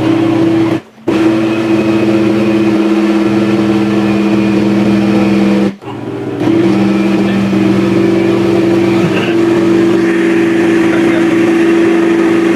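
Electric blender motor running loud and steady with a constant whine, switched off twice for a moment (about a second in and near six seconds) and started again. It is straining on a thick carrot-cake batter made with less oil and egg than usual.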